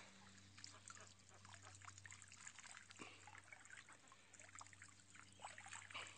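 Faint water sounds from a hand net being worked through shallow muddy water: small splashes and trickling, a little busier near the end as the net is lifted out dripping.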